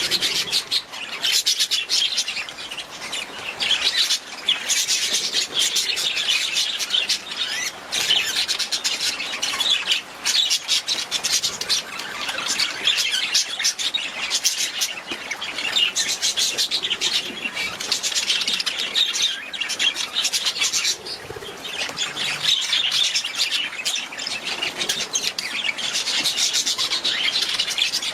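A flock of budgerigars chattering: many quick overlapping chirps and squawks, continuous throughout.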